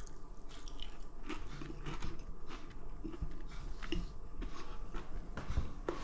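A person chewing a mouthful of breaded fish finger close to the microphone, with irregular crunches of the crumb coating.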